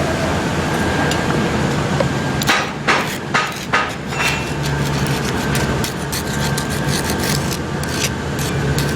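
A hammer striking metal about five times in quick succession, a few seconds in, over a steady workshop hum, followed by a run of small, irregular clicks and crackles.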